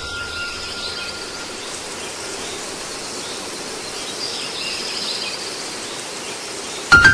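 Steady outdoor football-stadium ambience: an even hiss of crowd and background noise with faint high calls, a little louder about four to five seconds in. Piano music starts abruptly near the end.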